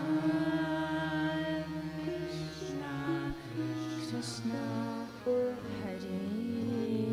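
Kirtan: held, melodic chanting over a harmonium, with a few light metallic hits in the middle.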